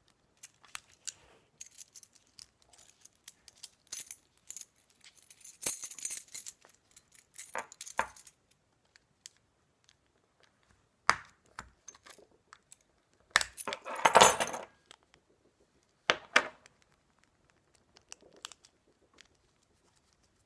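Handling noise of a Honda keyless remote being opened for a battery change: scattered clicks and taps of its plastic case and a small prying tool, with metal keys on a ring jangling now and then. The longest, loudest clatter comes a little past the middle.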